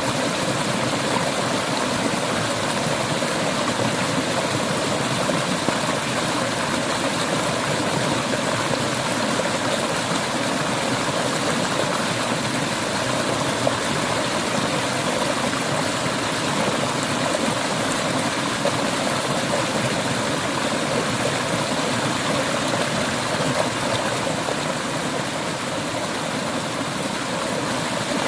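Clear stream or river water rushing and splashing steadily over rocks.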